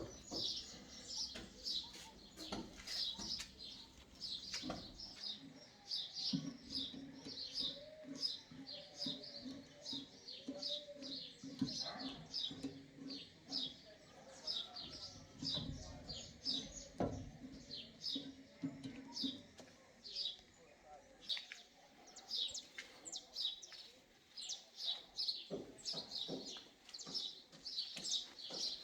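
Small birds chirping continuously in quick, short high notes. A faint low hum runs through the middle stretch.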